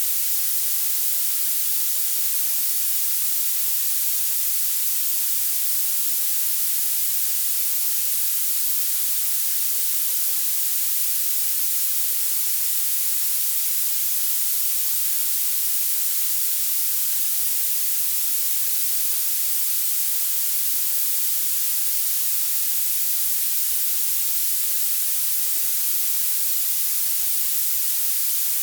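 Synthetic violet noise: a steady, unchanging hiss with its energy concentrated in the very highest frequencies and almost no bass.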